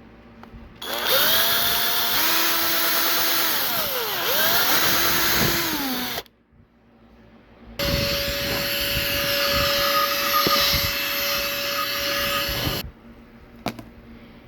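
Small handheld power tool, such as a drill, running in two bursts of about five seconds each with a short pause between. In the first burst its motor pitch slides up and down as the speed changes; in the second it holds steady.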